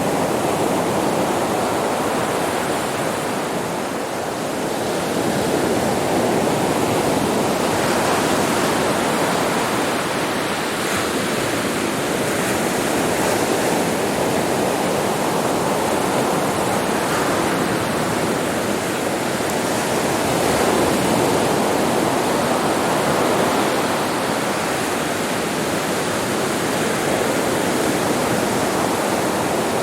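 Sea waves breaking on a beach: a continuous wash of surf that swells gently every several seconds.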